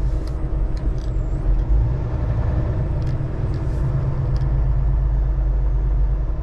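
Semi truck's diesel engine running at low speed while the truck creeps across a parking lot: a steady low rumble with a few faint clicks.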